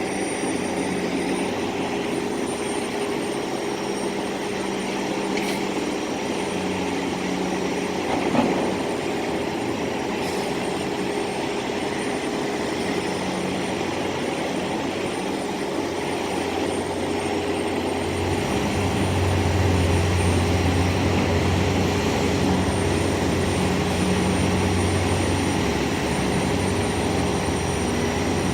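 Construction-site machinery engines running steadily, a continuous droning hum over general noise. The low drone grows louder and deeper about two-thirds of the way in, with a single sharp knock about eight seconds in.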